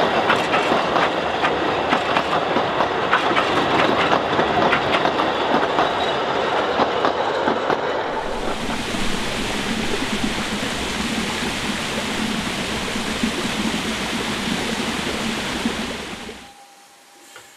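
Coaches of a narrow-gauge steam train clattering and rattling over the rail joints as they pass close by. After about eight seconds this gives way to a steady rushing hiss, which cuts off abruptly near the end.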